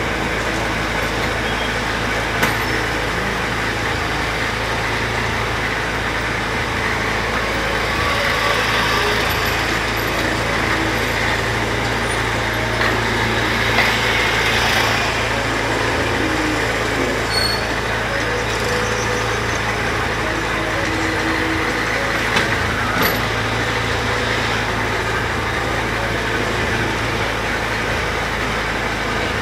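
A small ride car running along its guide track: a steady low hum with mechanical rattle, broken by a few sharp clicks.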